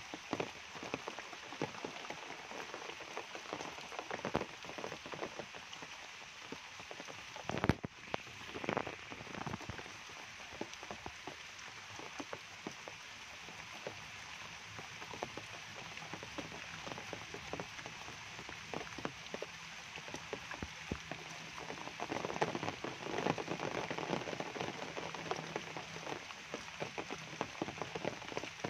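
Steady rain falling on foliage and wet ground, a dense patter of drops. A single sharp thump comes about eight seconds in.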